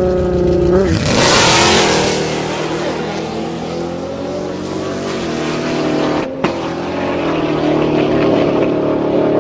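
Supercharged 7.0-litre V8 of a Jeep Grand Cherokee SRT8 held at steady raised revs on the start line, then launching about a second in with a loud rush of engine and tyre noise. It pulls away, its engine note dipping and climbing again through gear changes. The sound drops out briefly about six seconds in.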